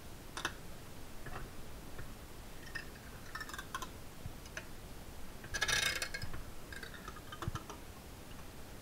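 Bench-mounted lever shear cutting sheet metal in short strokes: a series of sharp clicks and snips, the loudest and longest a little before six seconds in.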